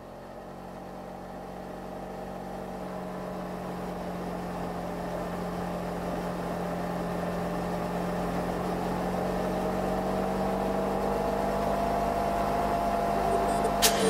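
Suzuki GW250 Inazuma's parallel-twin engine running steadily at cruising speed on the move, gradually growing louder, with a sharp click right at the end.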